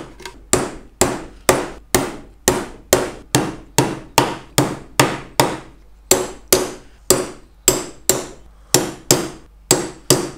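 Hammer driving wire nails into the wooden corner joints of a beehive super: a steady run of sharp blows, about two to three a second, with a brief pause about eight seconds in.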